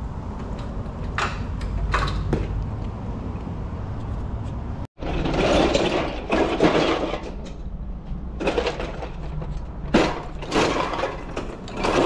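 A few sharp metallic clicks over a low hum, then a loaded rolling tool cart pushed along a floor, its wheels rumbling and the tools in its tray rattling and clanking.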